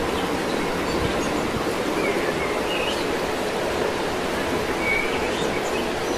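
Steady rushing outdoor background noise with a few short bird chirps.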